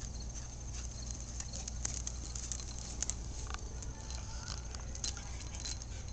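A puppy's claws and the garden hose he drags in his mouth make irregular light ticks and scrapes on concrete paving. A steady low rumble runs underneath.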